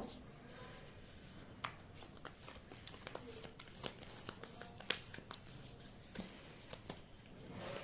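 Faint handling of a deck of cards: soft rustling with scattered sharp clicks as the cards are shuffled and drawn.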